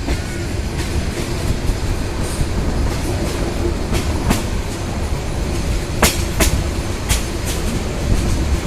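Train rolling slowly along the track: a steady low rumble with sharp, irregular clacks of the wheels over rail joints, the loudest two about six seconds in.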